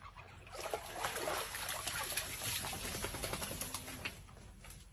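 Water splashing and sloshing in a plastic tub as a wet dog climbs out, with irregular splashes and drips. The sound fades out about four seconds in.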